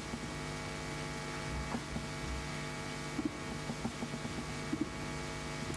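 Steady electrical hum made of several steady tones over a faint hiss, with a few faint small clicks scattered through.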